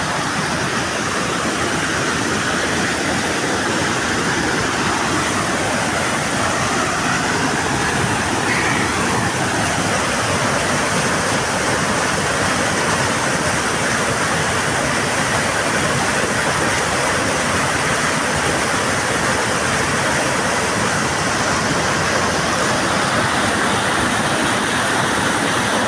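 Mountain stream rushing steadily over rocks, a constant loud roar of running water.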